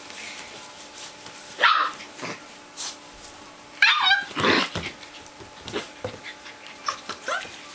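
Old English Sheepdog puppies, about five weeks old, yipping and barking in play: a loud yelp that drops in pitch near two seconds in, a quick run of yips around four seconds, and a few smaller yips near the end.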